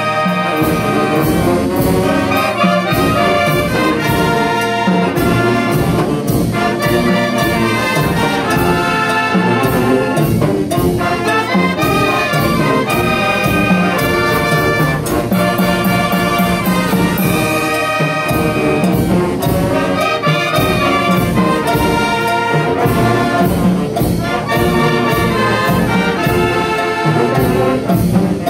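Oaxacan brass band (banda de viento) playing a tune: trumpets and trombones in held, layered notes over a steady beat.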